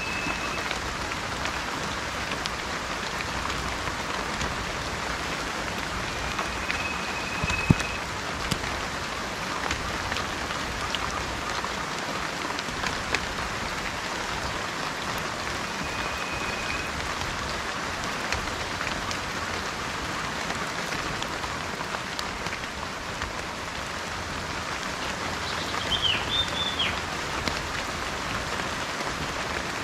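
Steady rain falling, with scattered sharper drop ticks. A bird gives a short level whistle three times and a brief call of a few falling notes near the end.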